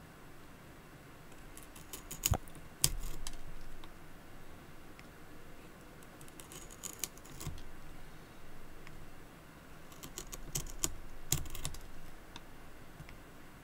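A small knife cutting a wooden pencil by hand, shaving off wood in short strokes: three bursts of crisp clicking scrapes, with two sharper clicks a couple of seconds in.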